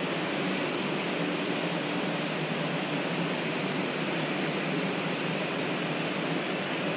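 Steady rushing hum of a standing 500 Series Shinkansen train, its air-conditioning and equipment cooling fans running, with no change in level.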